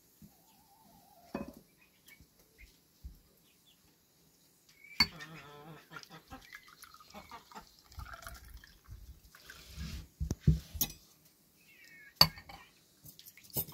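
Homemade cherry juice poured from a glass jar of preserved cherries into a small drinking glass, gurgling in stretches, with a few sharp clinks of glass on glass.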